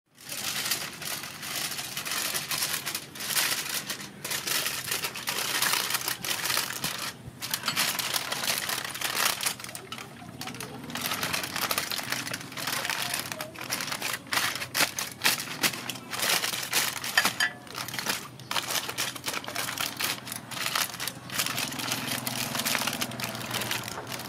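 Aluminium foil crinkling and crackling without pause as it is folded, pressed and crimped by hand into a closed parcel over a metal tray.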